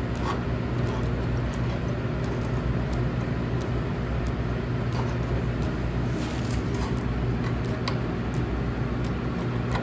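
A steady low machine hum, with a few faint light clicks.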